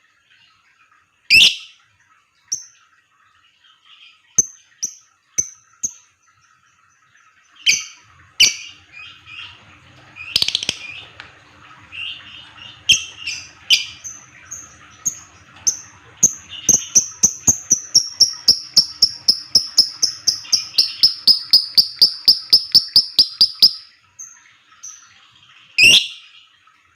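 Lovebird calling: a few sharp, loud shrieks, then a long run of rapid repeated chirps, about four a second, lasting some eight seconds, the quick 'ngetik' typing-like calling that lovebird keepers prize. One more sharp shriek comes near the end.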